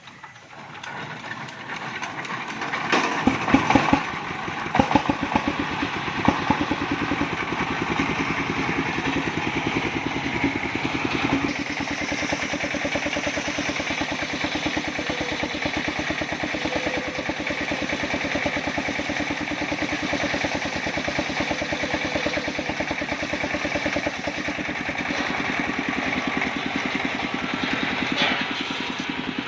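Engine of a machine saw for cutting wood running steadily with a fast, even firing pulse. It builds up over the first few seconds, with a few loud knocks about three to six seconds in.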